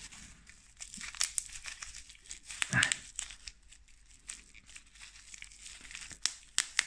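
Plastic bubble-wrap packaging being crinkled and torn open to free a coin, in irregular rustles and small clicks, with a louder rustle about three seconds in and a few sharp clicks near the end.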